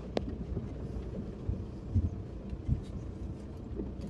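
Opel car driving over rough ground: a steady low rumble from the engine and running gear, with a few dull thumps from bumps about two seconds and nearly three seconds in.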